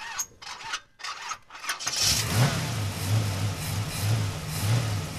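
A car engine is cranked with short, uneven bursts, catches about two seconds in, and settles into a steady, deep idle with a slight pulse.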